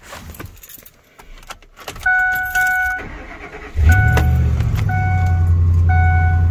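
Faint rustling and clicks, then a truck's warning chime dinging over and over. About four seconds in the engine starts and settles into a steady idle while the chime keeps dinging about once a second.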